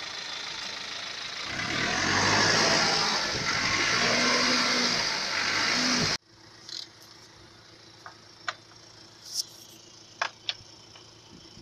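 Perkins four-cylinder diesel engine running with heavy blow-by, getting louder about a second and a half in. The engine sound stops abruptly about six seconds in, leaving a low hiss with a few light taps.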